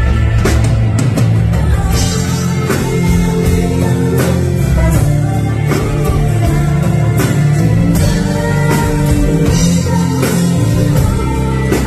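Live music: a woman singing lead into a microphone over a band with guitar and hand-drum percussion, with steady drum strikes.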